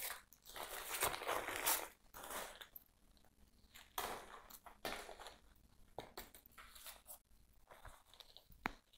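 White paper wrapping rustling and crinkling as it is pulled off a potted plant, loudest in the first two seconds or so. Shorter rustles follow, with a few small clicks near the end.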